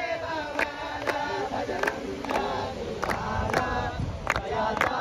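A group of devotees singing a devotional kirtan together, with a sharp percussion beat keeping time about twice a second.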